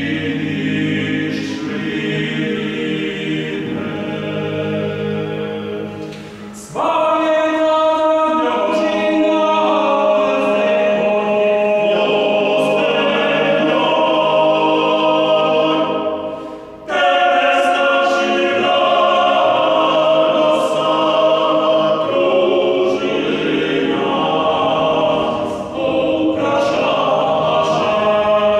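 Male vocal quartet of two tenors, a baritone and a bass singing a bugarštica, a Croatian Renaissance epic ballad. A softer, lower passage gives way to a sudden louder entry about seven seconds in; the voices break off briefly around the middle and come back in.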